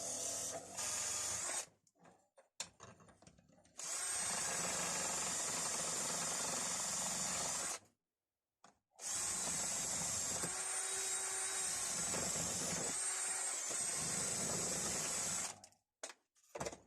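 Bench grinder spinning a polishing wheel with a steel wrench held against it, giving a steady running noise with a high whine. It comes in three main stretches of about one to six seconds, each cut off abruptly.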